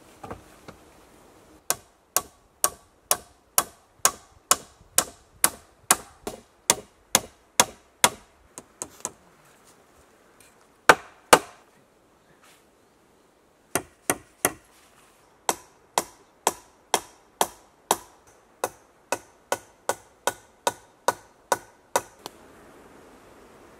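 Hammer blows driving into the birch-pole rafters of a cruck-frame shelter, steady strokes about two a second. They come in two long runs with a pause between them, and two heavier blows fall in that pause.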